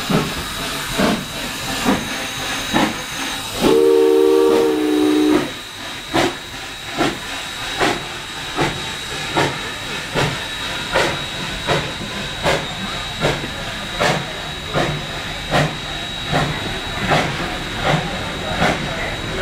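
Small steam locomotive pulling a passenger coach, its exhaust chuffing steadily a little over once a second. About four seconds in it sounds one chime-like whistle blast lasting about a second and a half, dipping slightly in pitch as it ends.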